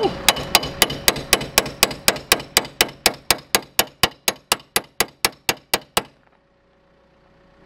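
A metal tool hammering on a steel pry bar wedged into a car door's edge: rapid, even metal-on-metal strikes, about four a second, that stop abruptly about six seconds in. The bar is being driven in to force open a stuck, latched door.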